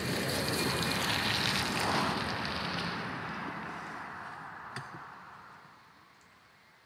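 Electric ride-on toy car driving past close by on concrete and then away, its motor and tyre noise fading steadily as it goes. A single sharp click about five seconds in.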